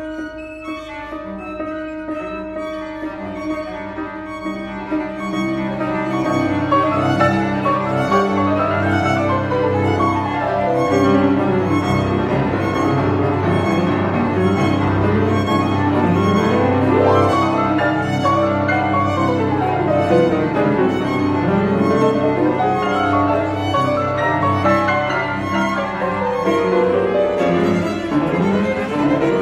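Piano trio of violin, cello and piano playing a fast, dense passage of rapid notes with sweeping rising and falling runs, growing louder over the first several seconds and then staying loud.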